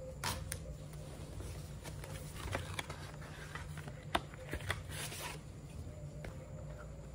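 A small cardboard box being opened by hand: a tear strip ripped off, then rustling and scraping of the card, with a few sharp clicks as the box and the case inside are handled.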